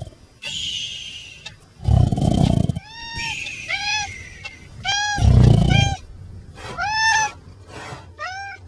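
A cat meowing over and over, about half a dozen short meows that rise and fall in pitch. Under them a sleeper snores, with two loud, low, rasping snores about three seconds apart, each after a hissing breath.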